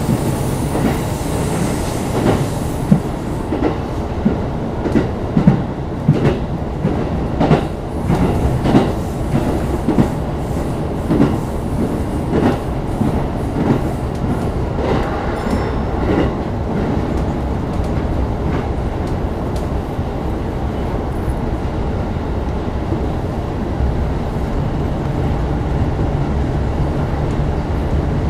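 E233-series electric commuter train running, heard from inside the passenger car: a steady rolling rumble with irregular clicks and knocks of the wheels over rail joints through the first half, settling into a smoother rumble after that.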